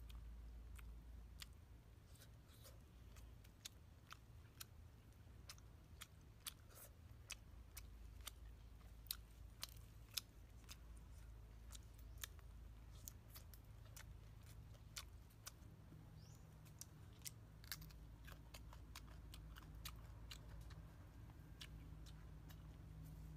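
Close-miked eating: crunchy chewing and biting of fried fish and raw leafy greens, heard as a string of sharp, irregular crunches and clicks, several a second.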